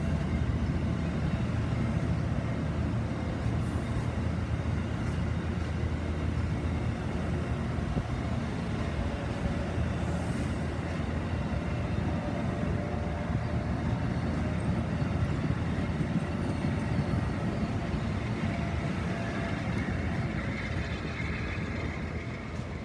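Amtrak passenger train rolling past at close range: a steady rumble of wheels on the rails that eases off near the end as the last car goes by.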